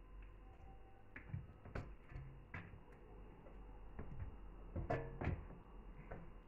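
Scattered knocks and clunks of kitchenware being handled: a large stainless steel stockpot and a plastic container at the sink, the loudest two close together a little after the middle.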